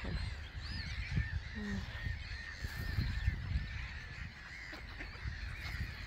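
Gulls calling overhead: a run of short, arched, high calls repeating several times a second, over a low rumble of wind on the microphone.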